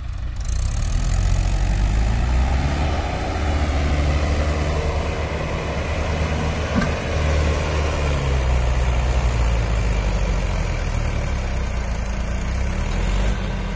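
Diesel engines of a Mahindra 575 DI tractor and a JCB backhoe loader running hard together, loud and steady, while the loader pushes the tractor's mud-stuck trolley. The engine note shifts up and down a few times.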